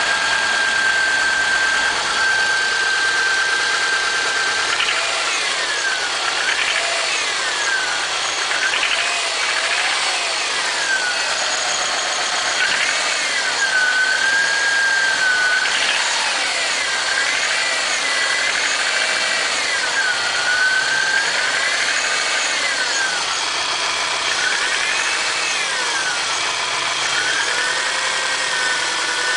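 Subaru EJ251 2.5-litre flat-four engine running, steady at first and then revved up and down again and again from about five seconds in. The owner reports a knock from this engine when it is cold, which goes away once it is warm.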